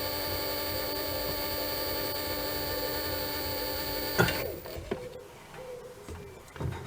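Small bench lathe's electric motor running with a steady hum, switched off with a click about four seconds in once a tiny pivot hole has been drilled deep enough in a clock escape wheel arbor. Faint small clicks and handling knocks follow.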